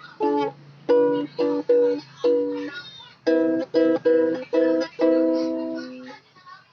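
Background music: a light tune of short, quick chords, with one longer chord held and fading away about five seconds in.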